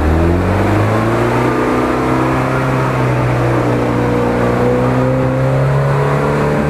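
UAZ-469 off-roader's engine revving under load as it drives through deep mud. The revs climb in the first second, then hold high, dipping slightly past halfway and rising again near the end.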